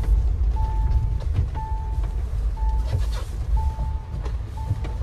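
Electronic warning beep in a vehicle, one steady tone sounding about once a second, over the low rumble of the vehicle driving.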